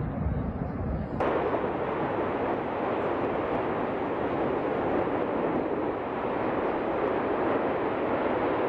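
Erupting volcano on La Palma, Canary Islands: the steady, dense rushing noise of lava fountaining and gas jetting from the vent. It comes in suddenly about a second in, after a duller noise.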